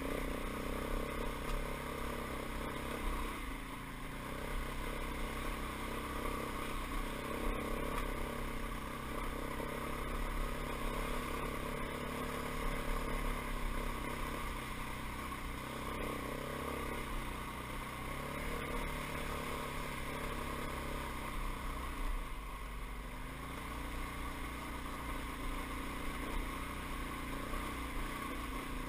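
Dirt bike engine running steadily while the bike rides along a rough trail, its engine speed rising and falling slightly.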